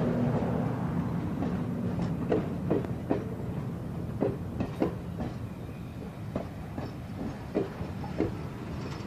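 Passenger cars of an excursion train rolling past at low speed, their wheels clicking over rail joints one or two times a second above a steady rumble. A low hum fades out over the first two seconds.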